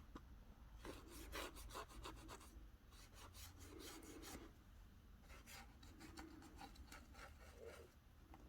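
Faint, scratchy rubbing strokes of a small brush working rose gold metallic onto a journal cover, in two spells with a short pause between them.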